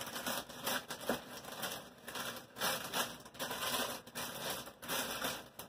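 Plastic packaging and bags rustling and crinkling in irregular bursts as groceries are handled and set aside.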